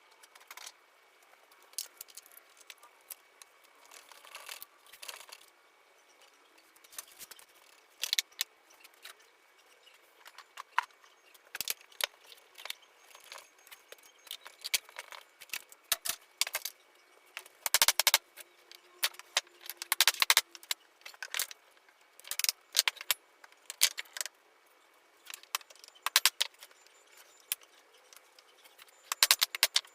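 Irregular clicks, knocks and clatter of hand work on a wooden shutter as its pieces are fitted and assembled, coming in clusters with quiet gaps and at their loudest a little past halfway.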